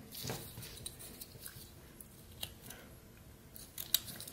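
Pocket knife blade cutting into pine, shaving off small slivers: quiet scraping cuts with a few sharp ticks, the loudest just before the end.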